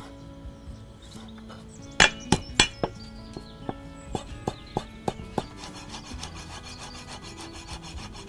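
Steel cleaver chopping on a wooden chopping block. A few sharp knocks come about two seconds in, then a run of lighter, quicker chops as it slices chilies.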